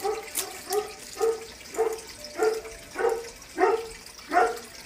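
A dog barking in a steady series of about nine short barks, a little over half a second apart.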